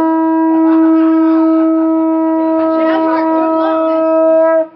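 Conch shell trumpet blown in one long, loud, steady note for the final blow of a sunset salute. The note stops shortly before the end.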